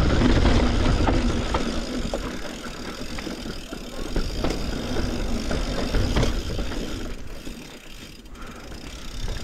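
Yeti SB140 mountain bike riding down a dirt trail: tyres rolling over dirt and rock, with scattered clicks and rattles from the bike and wind rumbling on the microphone. It grows quieter about seven to eight seconds in, then picks up again.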